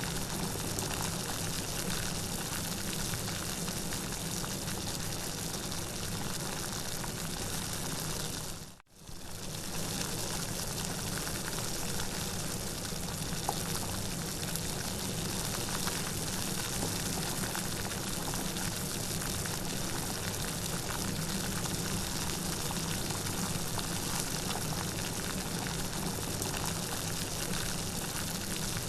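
Steady rain falling, an even hiss of many drops. About nine seconds in it fades out almost to silence for a moment and comes straight back.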